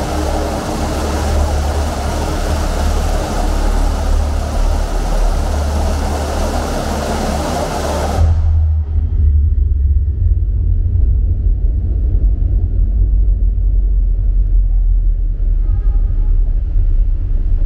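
Deep electronic bass drone under a dense hissing wash. About eight seconds in the wash sweeps away quickly from the top down, leaving the low drone and a few faint tones.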